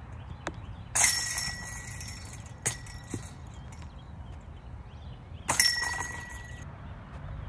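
Two disc golf putts hitting the chains of a metal basket, about four and a half seconds apart: each a crash of jangling chains with a ringing metal tone that fades over about a second. A sharp click falls between them.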